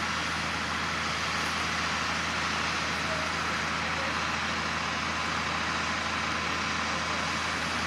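Steady low hum of a fire engine running, with an even hiss over it.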